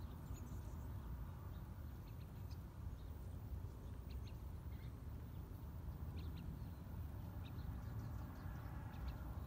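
Faint outdoor ambience: a steady low rumble with scattered faint, short high chirps and ticks.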